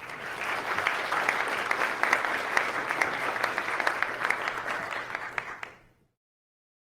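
Audience applauding at the end of a talk, steady clapping that fades out just before the end and stops.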